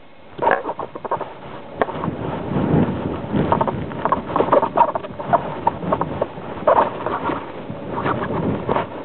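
Wind buffeting a camera's microphone in rough gusts, with irregular crackling knocks and scraping as the camera tumbles and rubs against the sand.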